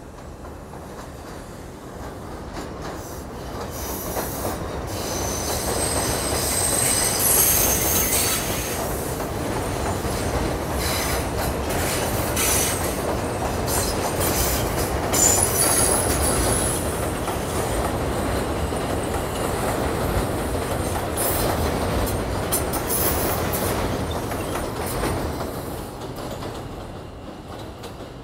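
R142 subway train passing on an elevated steel structure without stopping, its rumble building, holding, then fading as it goes by. There is high wheel-flange squeal from the curve and clicking over the rail joints.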